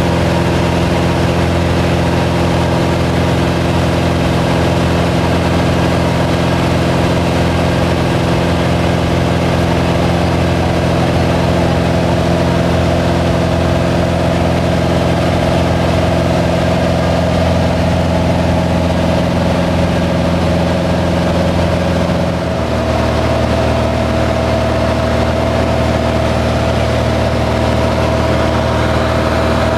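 Light aircraft's engine and propeller droning steadily inside the cabin in flight. About three-quarters of the way through, the pitch of the drone shifts abruptly.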